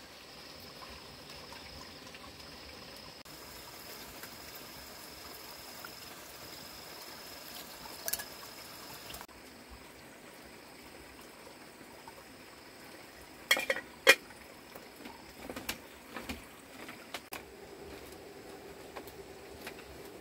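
Cooking over a wood fire: soft pouring and liquid sounds, then a string of sharp clinks from a metal pot, lid and utensils about two thirds of the way through, the loudest two close together.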